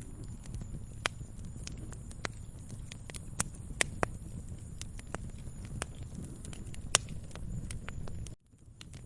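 Wood fire crackling in a fireplace: irregular sharp pops and snaps over a low rumble of burning. The sound drops out abruptly for about half a second near the end, then fades back in.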